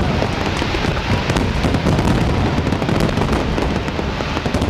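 Fireworks finale barrage: aerial shells bursting in rapid, overlapping bangs and crackles with no pause between them.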